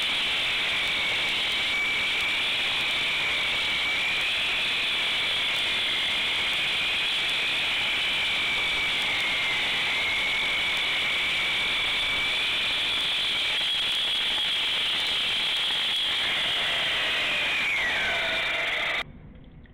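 Hand-held concrete saw cutting into a concrete slab, with a steady high whine over grinding noise. Near the end the blade is let off and the motor winds down with a falling pitch, then the sound cuts off abruptly.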